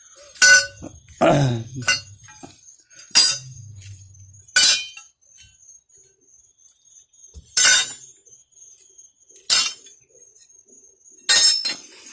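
A series of short, sharp clinks, about seven of them spaced a second or two apart, over a faint steady high-pitched tone.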